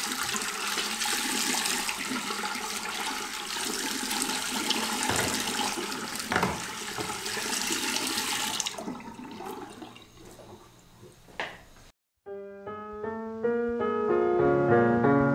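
Water running from a bathroom sink tap into the basin, fading out about nine seconds in as the tap is turned off. After a moment of silence, slow piano music begins.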